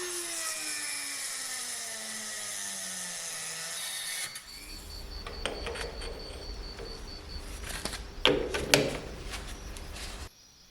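A power tool's motor spinning down, its pitch falling steadily over about four seconds, followed by workshop handling noise with a few sharp knocks.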